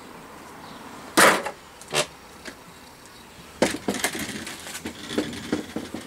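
Knocks and clatter of scrap vacuum cleaner motor parts being handled and dropped: a loud knock about a second in, a second one shortly after, then a run of smaller clicks and knocks in the second half.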